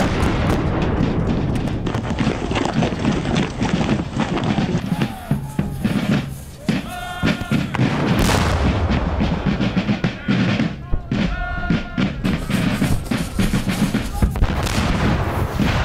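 Black-powder cannon and musket fire, many shots in quick succession, mixed with a music score. A cannon shot comes right at the start, and a pitched instrument tone sounds briefly twice, about halfway and again near two-thirds of the way.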